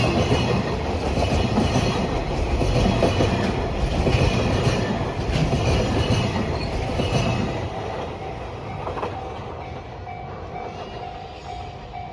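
A freight train's wagons passing close by with a rhythmic clickety-clack of wheels over rail joints, dying away after about eight seconds as the end of the train goes by.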